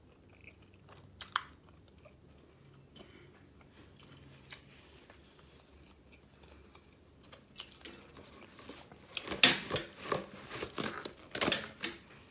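Close-miked chewing of a mouthful of seafood boil (snow crab and sausage). A few soft mouth clicks come in the first half, then a dense run of louder chewing clicks and smacks over the last four seconds.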